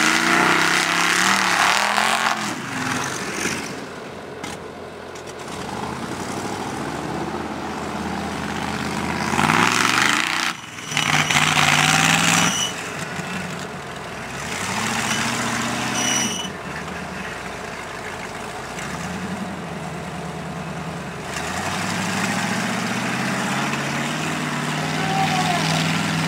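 Lifted mud-bog Jeep's engine running and revving, pitch rising and falling with the throttle, with loud full-throttle stretches near the start and again about ten seconds in.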